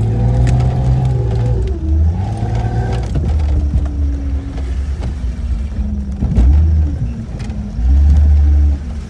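A 1992 Jeep Cherokee XJ's engine revving up and down as it is driven through deep snow, its pitch rising and falling, with bursts of deep rumble, the loudest near the end.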